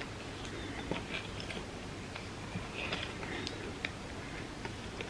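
A person chewing a soft dessert lasagna of tortilla layers with chocolate and peanut butter, with small irregular clicks and moist mouth sounds throughout. A faint steady hum runs underneath.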